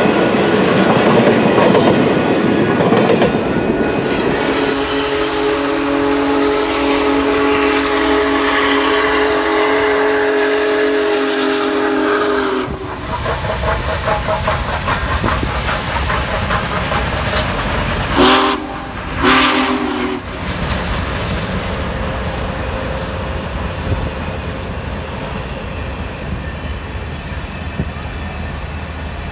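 A passing train rumbling and clattering over the rails, with a long held chord from its whistle. After a cut, the Union Pacific Big Boy 4014 steam locomotive and its train roll past and the whistle gives two short blasts, then the cars keep rumbling by.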